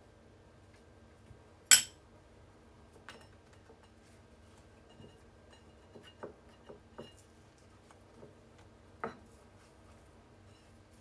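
Scattered clinks and light knocks of kitchen utensils against dishes, with one sharp, loud clink a little under two seconds in.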